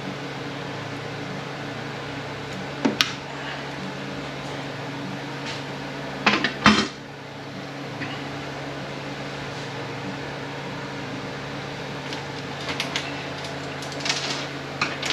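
Metal tools and transmission parts clinking and clanking as they are handled, with a sharp clank about three seconds in, the loudest clanks a little after six seconds, and lighter clicks near the end, over a steady low shop hum.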